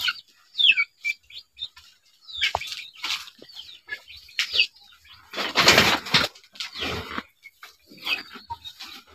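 Rustling of grass and dry rice straw close by, loudest for about a second around five and a half seconds in, with many short, high chirps of birds.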